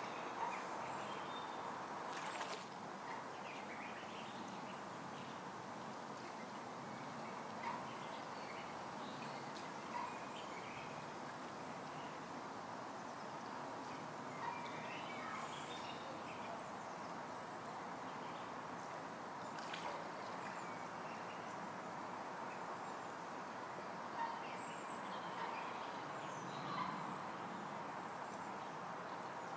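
Mallard hen and ducklings calling now and then, short soft calls every few seconds over a steady outdoor background hiss.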